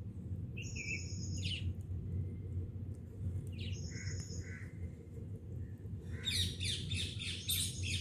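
Ringneck parakeets chirping: short high whistled chirps about a second in and again near four seconds, then a quick run of shrill, harsh calls from about six seconds in, over a steady low rumble.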